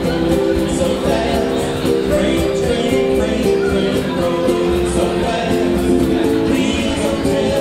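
Small ukulele band playing a folk tune live, several ukuleles strummed together in a steady rhythm.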